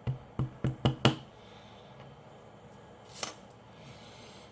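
Five quick, sharp taps in about a second, then one more a little after three seconds in.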